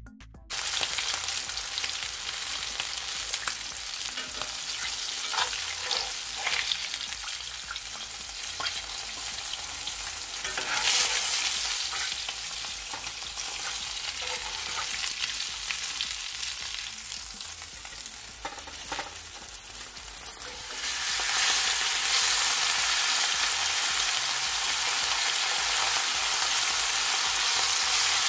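Fish deep-frying in hot oil in a cast-iron skillet: a continuous sizzle with scattered clicks and scrapes of a metal spatula. The sizzle grows louder about twenty seconds in.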